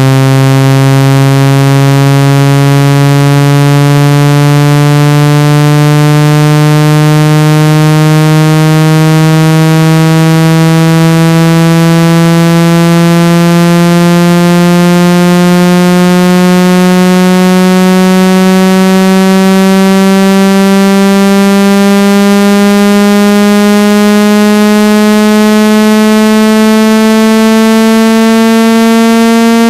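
Loud synthesized buzzy tone, rich in overtones, gliding slowly and steadily upward in pitch. It is a water-ejection sweep tone played through a phone speaker to vibrate trapped water out of the speaker grille.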